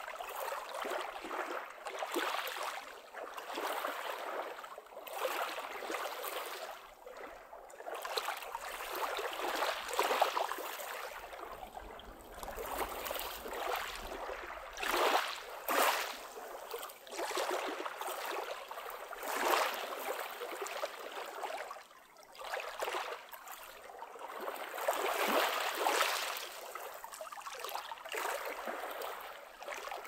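Small waves of a calm sea lapping on a pebble shore, washing and trickling over the stones in gentle swells every second or two.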